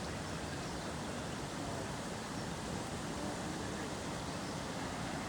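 Floodwater pouring over a dam: a steady, even rush of water.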